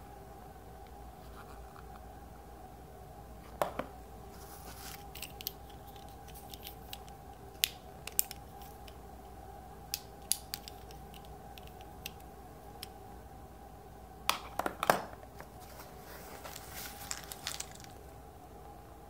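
Handling noise from unboxing a stethoscope kit: scattered sharp clicks and taps and short rustles of plastic and cardboard, with the loudest cluster of clicks about three-quarters of the way through. A steady hum runs underneath.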